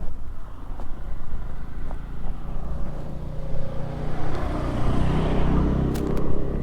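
Kawasaki Ninja 250 motorcycle engine with a Yoshimura exhaust running with a steady note that grows louder over a few seconds, loudest about five seconds in, then drops away with a few clicks near the end.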